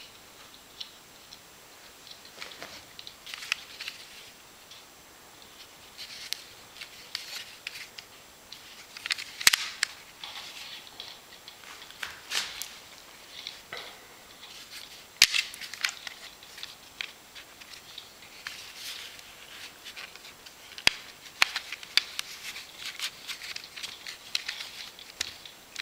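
Plastic plates of a ribbon-bound magic wallet (a Jacob's ladder toy) being handled and taken apart: irregular clicking, tapping and rustling, with a few sharper plastic clacks.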